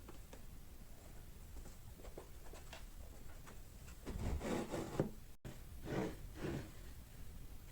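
Handling noise from woodworking: scattered light taps, then two short spells of rubbing or scraping about four and six seconds in.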